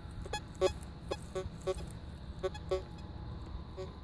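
Raptor VLF metal detector giving short, low-pitched beeps, about eight in irregular groups, as the coil sweeps back and forth over a buried target. The low tone is the detector's ferrous (iron) signal, broken and mixed with a non-ferrous tone, which the operator takes for a deep, thin, long nail.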